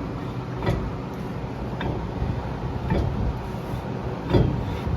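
Four light ticks a little over a second apart, each gap slightly longer than the last, over a steady low hum: a brake rotor spun by hand and coasting down, the parking brake shoes inside it touching lightly. This is the drag check that sets the shoe adjustment.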